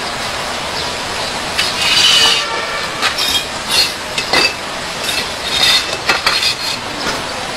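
Clay bricks being set down and slid into place on a concrete bench: a series of short scrapes and knocks, including a brief squeaky scrape about two seconds in, over a steady background hiss.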